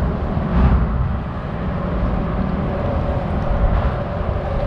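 Car traffic crossing the bridge overhead: a steady low rumble with a faint steady hum.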